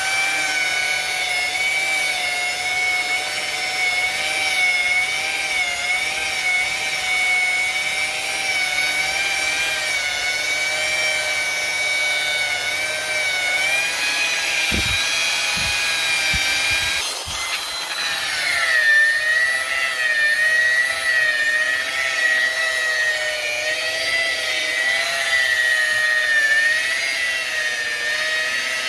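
Electric polisher with a foam pad running against a plastic headlight lens, a steady whine that wavers slightly as the pad is pressed and moved. A few light knocks come just before its pitch drops a step, about two-thirds of the way through.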